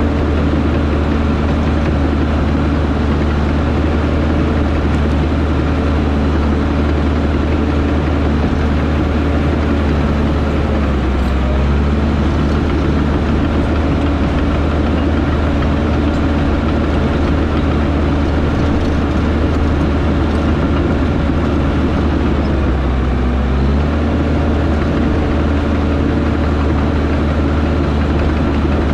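Diesel engine of a piece of heavy earthmoving equipment running steadily at work, its pitch sagging briefly under load twice, about a third of the way in and again about four-fifths of the way through.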